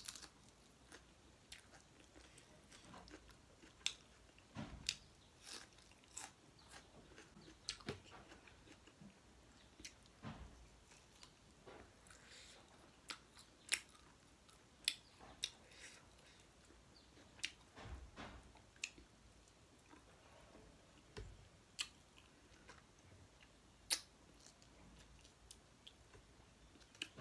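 Chewing and mouth smacks while eating pork curry and rice by hand: irregular wet clicks and smacks every second or so, a few of them sharper.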